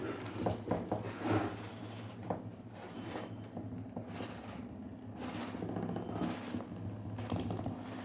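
Small battery-powered DC motor of a homemade cardboard table fan running with a steady hum, with a cluster of light clicks and knocks in the first second or so.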